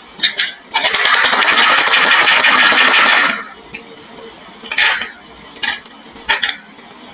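Marbles running down a wooden marble run: a couple of clicks, then a dense rattling clatter of many marbles for about two and a half seconds, then four separate clacks of single marbles.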